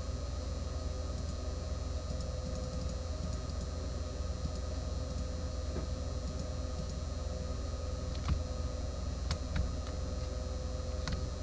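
Steady low hum with a faint steady tone, and a few sharp computer clicks in the second half.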